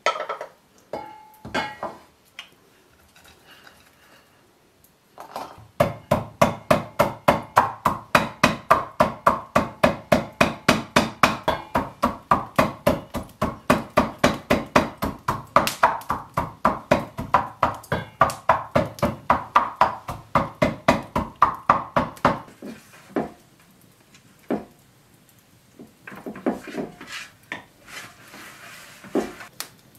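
Walnuts being pounded in a mortar with a wooden pestle: a steady run of sharp knocks, about three a second, starting about five seconds in and stopping around twenty-two seconds. Before and after come a few scattered knocks and handling sounds.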